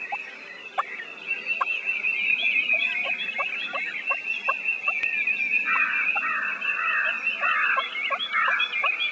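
Wild turkey gobbler gobbling, a rapid rattling run of notes in the second half, over short calls repeating about twice a second and a steady high-pitched chorus of chirps.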